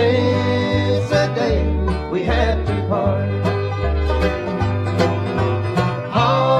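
Instrumental break on a 1970s bluegrass record: banjo rolls and guitar over an upright bass alternating between two notes, with a sustained lead line that slides into its notes.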